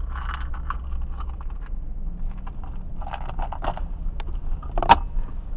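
Low, steady rumble of a car's cabin creeping along in traffic, with scattered small clicks and rattles and one sharp click about five seconds in.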